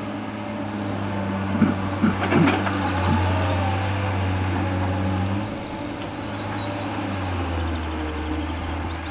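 Diesel engines of excavators and a bulldozer working on landfill rubbish: a steady low engine drone whose note drops about five and a half seconds in, with a few sharper knocks about two seconds in.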